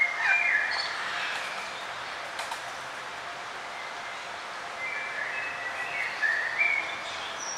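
Several songbirds singing and chirping over the steady rush of flowing river water, with a burst of song at the start and more calls from about five seconds in.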